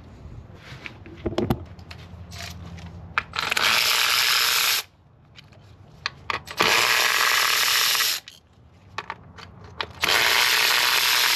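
Three blasts of a compressed-air blowgun, each a steady hiss about a second and a half long that starts and stops abruptly, with light clicks of tool handling between them.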